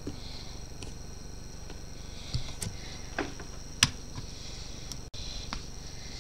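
Scattered light taps and clicks of small objects being handled on a hard desk, a few close together between about two and four seconds in, the sharpest near four seconds, over a steady hiss with a faint high whine.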